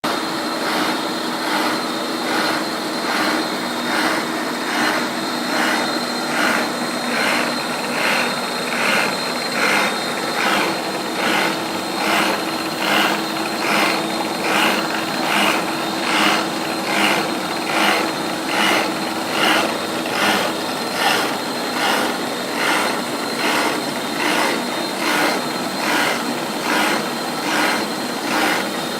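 A 12 mm Iscar carbide end mill cutting on a CNC milling machine along a trochoidal (peel milling) toolpath. The steady spindle tone runs under a cutting noise that swells in an even pulse, somewhat under two a second, as each loop of the toolpath brings the cutter into the material.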